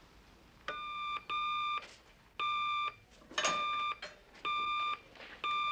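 Red Batphone ringing: six short, high electronic rings of about half a second each, in loose pairs, roughly one a second.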